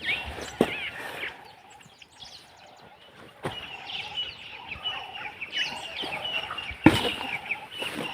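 Chickens clucking and small birds chirping, with three sharp knocks, the loudest near the end.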